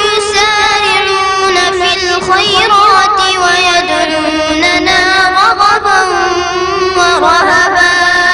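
A young boy's high voice in melodic Quran recitation (tajweed), holding long drawn-out notes with wavering ornaments on them.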